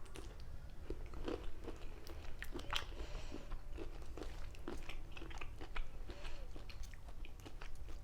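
A person eating cocktail shrimp close to the microphone: irregular wet chewing and mouth smacks, with small clicks, over a low steady hum.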